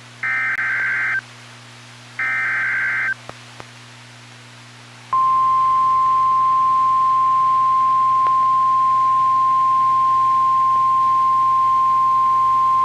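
Emergency Alert System SAME header on NOAA Weather Radio: two short buzzing digital data bursts, each about a second long and a second apart. About two seconds later the steady 1050 Hz warning alarm tone starts, about five seconds in, and holds as one long tone. Together they signal that a new warning is about to be broadcast.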